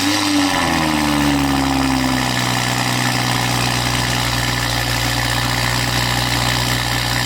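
BMW X3 M40i's B58 turbocharged inline-six with catless downpipes and a stage 1 tune, running high just after starting; the revs fall over about two seconds and settle into a steady idle.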